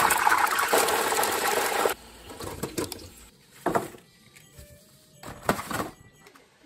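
Frozen french fries poured from a plastic bag into a deep fryer's wire basket: a dense rattling and crinkling that stops abruptly about two seconds in. A few brief, separate knocks and clicks follow.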